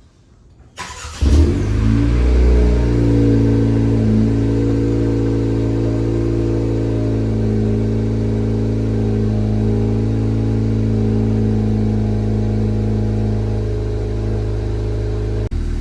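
Honda Civic Si's 1.5-litre turbocharged four-cylinder (L15) breathing through a MAPerformance race exhaust, starting up about a second in with a brief flare in revs, then settling into a steady, loud idle.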